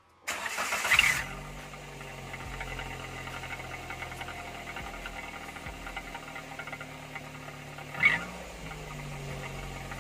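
Daihatsu Gran Max pickup's engine, parked, blowing through a homemade 'suos' whoosh exhaust insert. A quick rev near the start gives a loud hissing whoosh; the engine then idles steadily, and a second short rev blip comes about eight seconds in.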